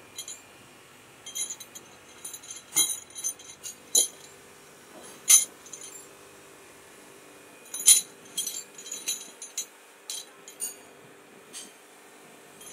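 Chrome-plated steel L-handle socket wrenches clinking against one another as they are handled. The clinks are sharp, irregular and bright-ringing, and the loudest come about five and eight seconds in.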